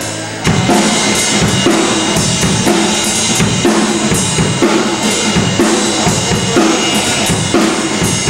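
Drum kit being played loudly, a steady beat of drum hits and cymbals that starts abruptly about half a second in.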